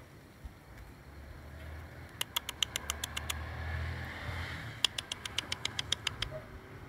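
Two quick runs of sharp mouth clicks, about nine clicks each, one after the other: a person imitating a house gecko's chirp to call the gecko.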